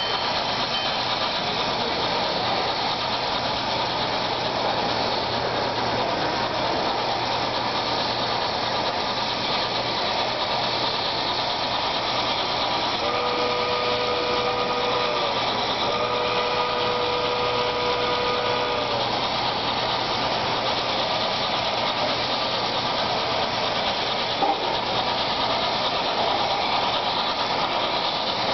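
Steady, dense background noise of a large hall, with a train whistle sounding two long blasts, each a chord of a few notes, about halfway through.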